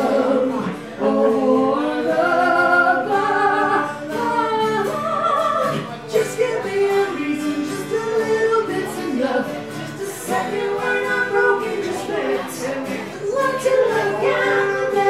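Live acoustic duo: a man and a woman singing together into microphones, accompanied by two strummed acoustic guitars.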